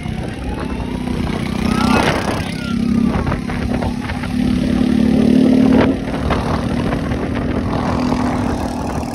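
Motorcycle engine running while riding along a road, its hum swelling a few times and loudest a little past halfway, with wind rumbling on the microphone.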